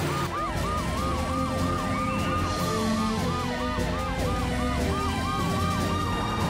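Cartoon emergency-vehicle sirens of a police car, fire truck and ambulance on the way to a call. A fast siren rises and falls about three times a second, overlaid by a slower wail that climbs for about two seconds and then sinks away.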